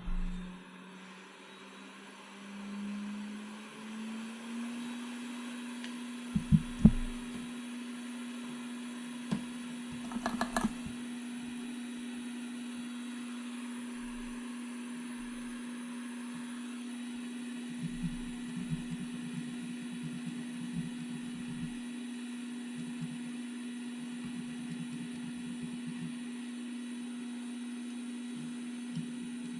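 Hot air rework station's blower running with a steady hum that rises in pitch over the first few seconds, then holds. A few sharp knocks and clicks from tools on the bench about six and ten seconds in.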